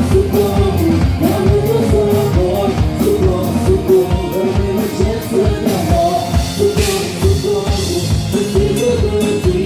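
Live band playing an upbeat song with a steady drum beat and a melody line, with some singing.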